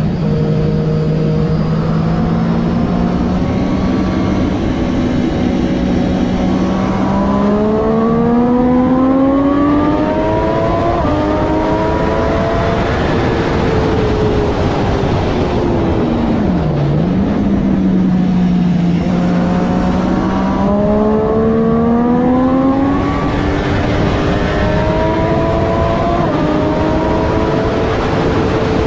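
Triumph Daytona 675R's three-cylinder engine at race pace, its pitch climbing in steps as it upshifts through the gears. Around the middle it falls sharply as the bike slows and downshifts, then it climbs through the gears again, over a steady rushing noise.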